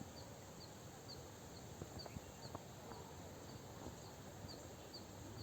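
Faint outdoor rural ambience, with a short, high chirp repeating evenly about twice a second and a few faint ticks.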